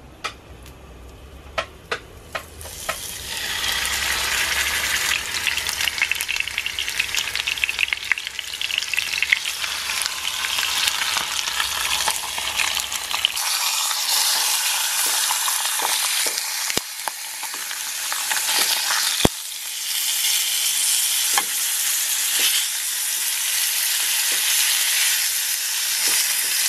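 Pork chops frying in a non-stick frying pan: a loud, steady sizzle that starts about three seconds in and carries on, with scattered clicks.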